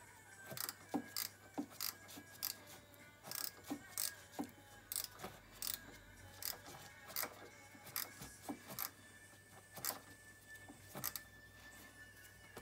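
A hand tool tightening the carburetor's mounting nuts on a small 125 cc ATV engine: irregular metallic clicks, a few each second. The nuts are being snugged down only moderately, to avoid cracking the textolite spacer gasket between carburetor and intake manifold.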